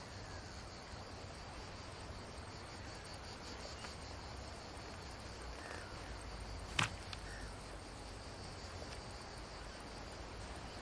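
Crickets chirring steadily in the background as a faint, even insect chorus. A single sharp click or knock about seven seconds in is the loudest sound.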